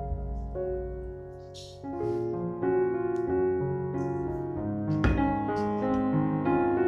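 Background piano music at a steady pace, with a short hiss about one and a half seconds in and a brief knock about five seconds in.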